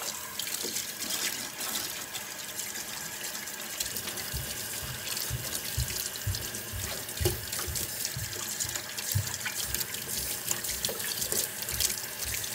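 Kitchen faucet running steadily into a stainless steel sink as hands are rinsed under the stream. Soft, irregular low thumps join in from about four seconds in.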